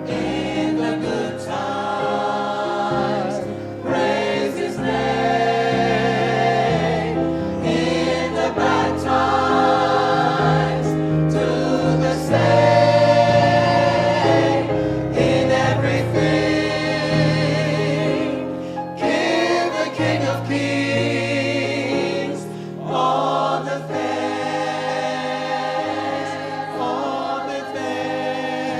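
Gospel choir singing in parts with instrumental accompaniment.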